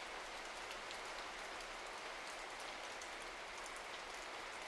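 Steady rain-like hiss with faint scattered crackles.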